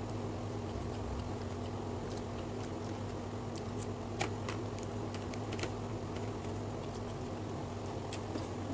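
A few light clicks of wooden chopsticks against a plastic food box, over a steady low hum.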